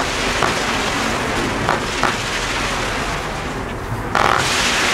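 A fireworks battery firing comets: a steady hissing rush with a few sharp pops, then a louder crackling burst about four seconds in.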